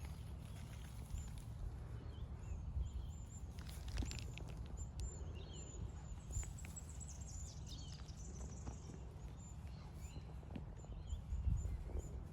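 Faint outdoor ambience: a steady low rumble, with a small bird's short, very high chirps repeated in runs, and a few sharp knocks.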